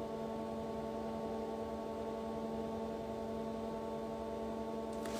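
A steady hum made of several held tones, unchanging throughout.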